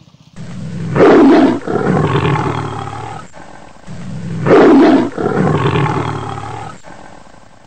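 Loud animal roars, twice, about three and a half seconds apart, each swelling to a peak and trailing off into a lower rumble; the two are almost alike in shape.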